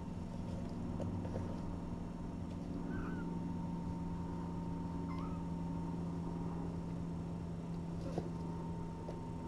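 Steady low room hum with a few faint, short kitten mews, about three in all, and a small click near the end.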